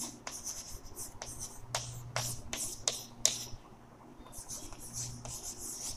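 Chalk writing on a chalkboard: a string of sharp taps and clicks as the chalk strikes the board, followed by softer scratchy strokes in the last couple of seconds.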